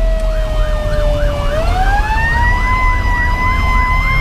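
Fire engine sirens on a run, heard from inside the cab: a Federal Q2B mechanical siren's wail slowly winding down, then spun back up about a second and a half in and held, over an electronic siren yelping about four times a second. The Detroit Series 60 diesel rumbles underneath.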